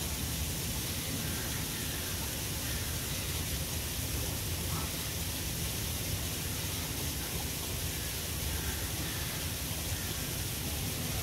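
Steady background hiss over a low rumble, with faint distant voices.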